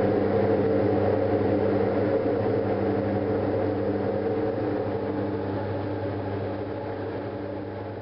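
Diamond DA42 Twinstar's twin engines and propellers running steadily, heard inside the cabin in flight, with a constant low drone over airflow noise. The sound fades out gradually over the last several seconds.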